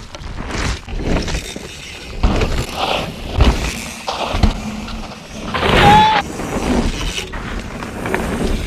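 Mountain bike ridden hard on a dirt trail: knobby tyres rushing and skidding over loose dirt, and the bike rattling and clattering over bumps, with several sharp knocks. There is a short squeal about six seconds in.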